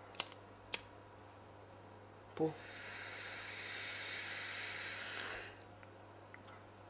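Two sharp lighter clicks, then a long hissing inhale of about three seconds as someone draws smoke in.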